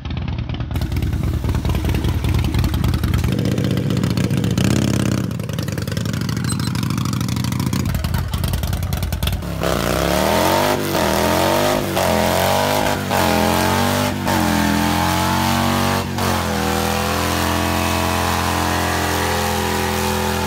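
Harley-Davidson Dyna's V-twin engine running and being blipped. From about ten seconds in it is revved hard up and down over and over, then held at high revs in a smoky burnout.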